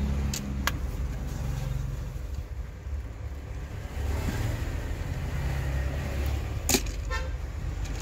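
Low drone of motor-vehicle traffic running steadily in the background. Near the start come light plastic clicks from the RC rock crawler being handled, and a louder click with a brief rattle about two-thirds of the way in.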